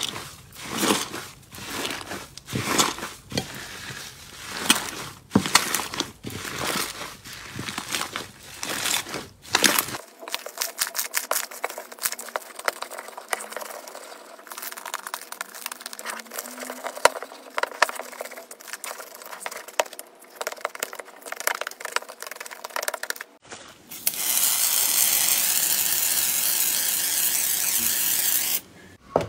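Fluffy slime squeezed and kneaded by hand in a glass bowl, in rhythmic squishes, then slime pressed and rubbed on a glass plate with fine, dense crackling. Near the end a loud, steady hiss runs for about five seconds and cuts off.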